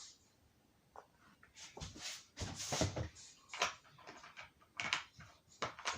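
Hands kneading toothpaste putty worked with canola oil, giving irregular short squelching, sticky sounds about every half second to a second.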